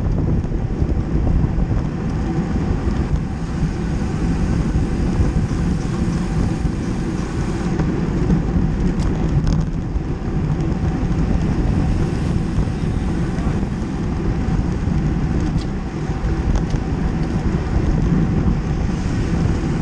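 Steady wind rush on the microphone of a camera riding in a road-cycling pack at racing speed.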